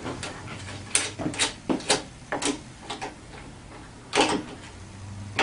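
A 14 mm ratchet clicking as it snugs down a mirror mounting bolt on a scooter handlebar. There are short, irregular clicks, about seven of them between one and three seconds in, then a longer one a little after four seconds.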